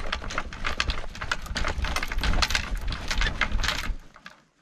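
Ice and packed snow being chipped and scraped out of a utility trailer bed by hand: a quick run of sharp strikes, several a second, that stops about four seconds in.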